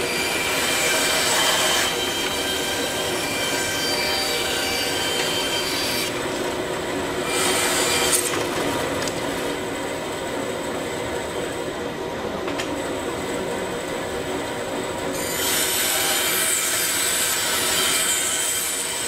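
Woodworking band saw running, its blade cutting through a wooden board. A high hissing cutting noise comes and goes: through the first six seconds, briefly around eight seconds, and again from about fifteen seconds nearly to the end, over the saw's steady running hum.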